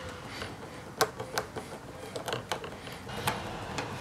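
Small screwdriver working the servo screws of a PVC camera mount: scattered sharp clicks and taps of metal on plastic, the loudest about a second in.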